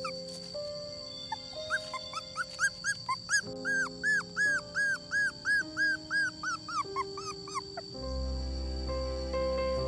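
A dog whining in a fast series of short, high-pitched whimpers, about three a second, each rising and falling in pitch. Background music with sustained notes plays underneath, and a low bass note comes in near the end.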